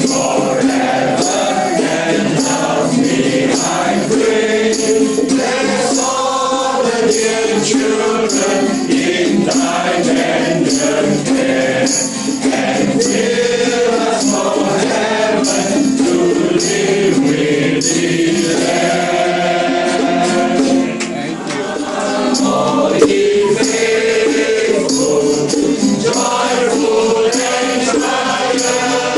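A small group of carollers singing a Christmas carol together.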